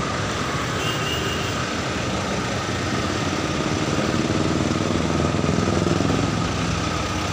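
Engine of a white SUV running close by at low speed, its low hum swelling between about four and six seconds in, over steady street-traffic noise.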